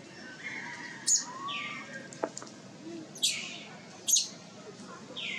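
A baby macaque calling: a string of short, high squeals that each fall in pitch, repeated every second or two, with two sharper, shrill shrieks about one and four seconds in.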